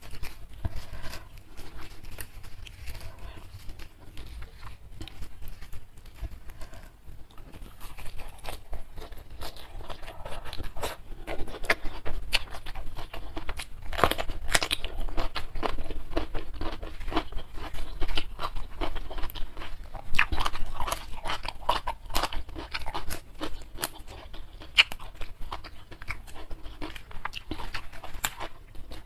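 Close-miked chewing and crunching of raw vegetables and rice, with a loud crisp bite into a fresh cucumber about halfway through. The crunching is busiest and loudest through the middle, lighter at the start and end.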